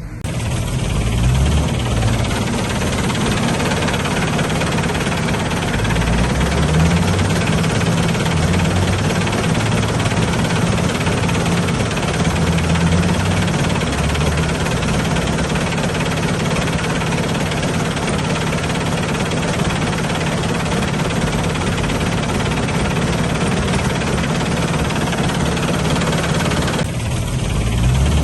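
Heavy diesel engine of a construction machine running steadily, with a deep, throbbing low tone.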